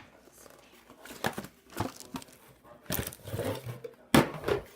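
Scattered handling noises from a plastic toy package being cut and pulled open: scrapes and rustles, with a louder sharp sound near the end.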